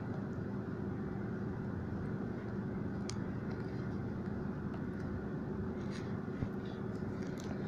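Steady low room hum, with a few faint clicks and rustles of hands handling the opened tablet's cables, tape and frame, and one small knock about six seconds in.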